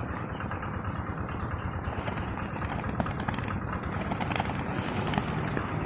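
Pigeon wings flapping in a fast, continuous flutter, with a few short high chirps in the first two seconds.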